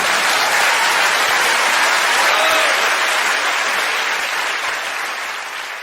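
Audience applauding at the end of a live song: dense, steady clapping that begins to fade near the end.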